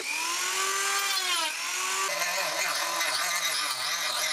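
Small hand-held rotary tool with a thin circular saw blade, its motor whining at a steady high pitch that sags slightly. About two seconds in it turns to a rougher, wavering cutting noise as the blade cuts into the laminate sheet.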